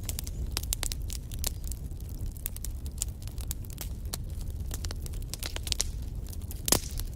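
Wood fire burning in a fireplace: a steady low rumble of flames with frequent sharp crackles and snaps from the burning logs, and one louder pop near the end.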